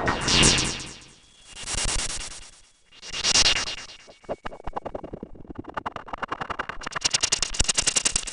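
Barking Wombat software synthesizer playing a noisy patch: three sweeping swells of noise about a second and a half apart, then, from about four seconds in, a rapid stream of clicking pulses that speeds up, under a faint steady high tone.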